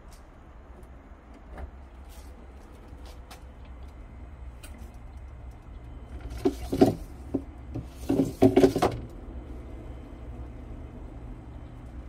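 A chest freezer's removable wire storage basket being handled, rattling and knocking against the freezer in two short bursts of clatter a second or so apart, over a steady low hum.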